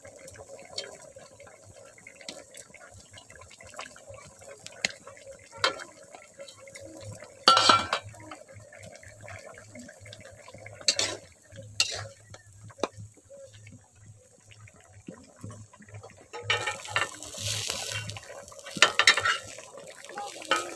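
Metal spoon clinking against an aluminium wok and a steel plate as fried fish-roe patties are added to a simmering curry, a few scattered sharp clinks with the loudest about seven seconds in. A short stretch of hiss near the end.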